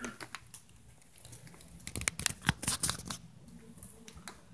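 An irregular run of short, sharp clicks and knocks, densest in the middle.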